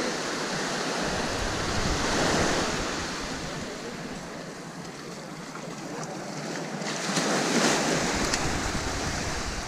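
Small waves washing up on a sandy beach, swelling twice as they break and run up the shore, with wind rumbling on the microphone.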